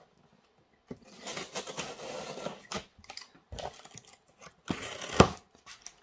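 Box cutter slitting the packing tape along a cardboard box's seam, a scratchy scraping and tearing sound lasting a couple of seconds, followed by a few sharp knocks and cardboard rustling as the flap is pulled open, the loudest knock about five seconds in.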